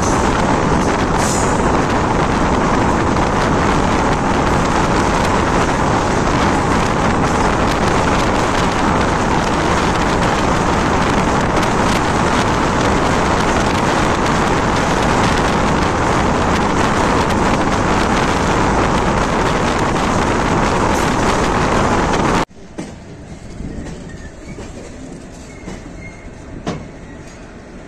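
Indian Railways express train running at speed, heard from on board as a loud, steady rumble and rush of noise. About 22 seconds in it drops abruptly to a much quieter train sound with a few sharp clicks.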